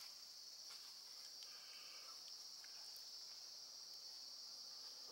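Faint, steady high-pitched chorus of insects chirring in the forest.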